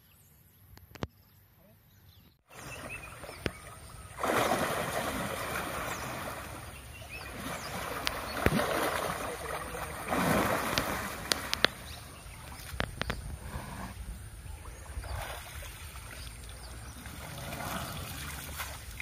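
Muddy pond water splashing and sloshing around a bathing elephant as it sits down in the water and moves about. The first couple of seconds are quiet. The splashing starts about four seconds in and goes on in uneven surges, with a few sharp splashes.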